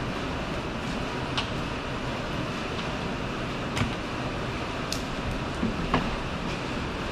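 A handful of sharp plastic clicks and knocks as the Honda CR-V's plastic under-cover and its push clips are worked loose by hand, about four in all, the strongest about six seconds in, over a steady background noise.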